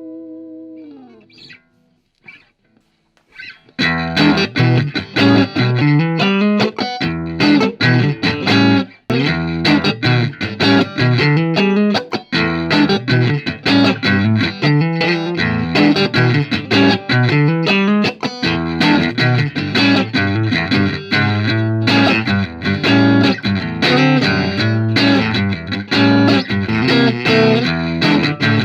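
Electric guitar: a held note with vibrato that slides down in pitch and dies away in the first second or two. After a short pause, from about four seconds in, fast continuous lead playing follows.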